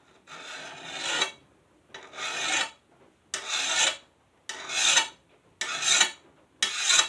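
Hand file rasping along the edge of a steel lawn mower blade in six strokes, about one a second, the later ones shorter. The file is knocking the burr off the freshly sharpened edge.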